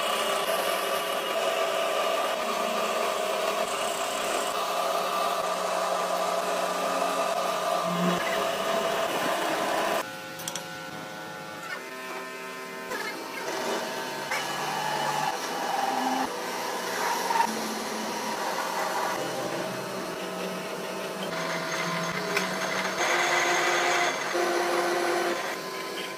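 Workshop machinery running steadily, a motor-driven machine with a whining drone, changing abruptly about ten seconds in and again near the end.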